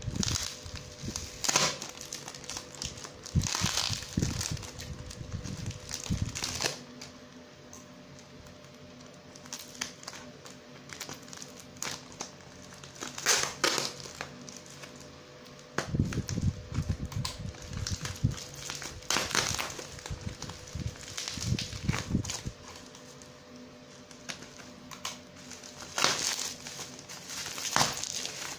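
Plastic bag and packing tape crinkling and rustling in irregular bursts as a taped parcel is cut with scissors and pulled open, with duller handling knocks about halfway through.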